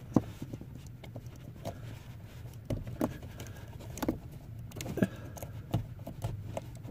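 Wiring plug being pushed by hand onto a car heater blower motor's connector: scattered small plastic clicks and knocks at irregular intervals, over a faint low hum.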